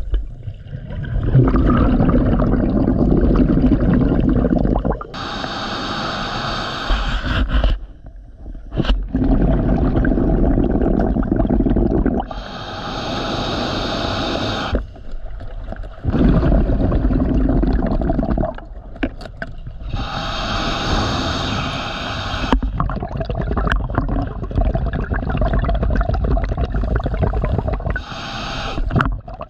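Scuba diver breathing through a regulator underwater. Long bubbling exhales alternate with shorter hissing inhales, with a brief pause between breaths, about four breaths in all at roughly seven seconds each.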